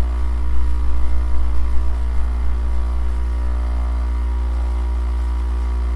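Nescafé Dolce Gusto Mini Me capsule coffee machine running its cold rinse cycle: the pump runs with a loud, steady hum while water pours into the mug.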